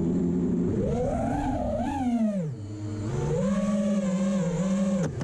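FPV quadcopter's brushless motors whining, the pitch rising and falling with the throttle: it climbs about a second in, drops low around two and a half seconds, then holds fairly steady before a quick dip near the end.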